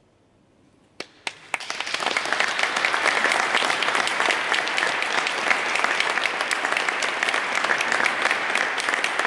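Audience applauding: after about a second of near silence, a lone clap and a second one, then the applause swells within a second into steady, dense clapping.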